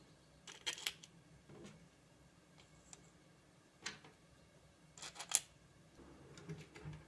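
Scattered sharp clicks and light taps of small hard objects, a pair about a second in, one near four seconds and a louder cluster a little after five seconds, over a faint steady low hum.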